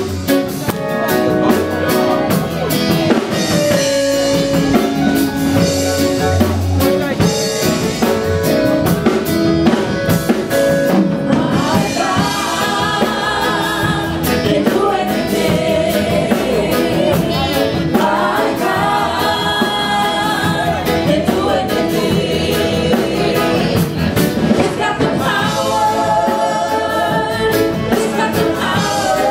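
A church band playing gospel music with drum kit, with singing voices coming in more strongly about halfway through.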